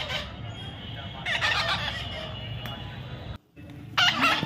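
Young parrot calling in harsh squawks, in three bursts: at the start, in the middle and near the end, with a sudden brief gap just before the last.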